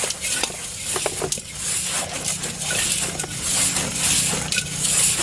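A hand mixing damp wheat bran bait in a metal basin: gritty rustling and scraping that comes in irregular swishes as the fingers rake through the mix, with small clicks against the metal.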